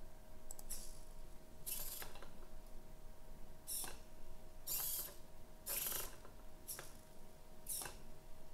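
Hobby servo motors of an Arduino robot arm whirring in short bursts, about once a second, as the arm steps between its programmed soft-limit positions.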